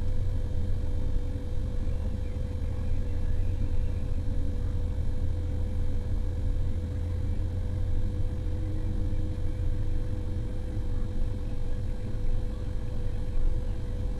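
Heavy motor grader's diesel engine running steadily under load: a deep, constant drone with a steady whine above it.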